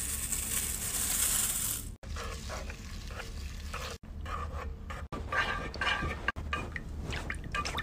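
Soy wax flakes pouring into a melting pot, a steady hissing rustle that stops about two seconds in. After that come short, scattered scrapes and squeaks as a wooden stick stirs the melting wax in the pot.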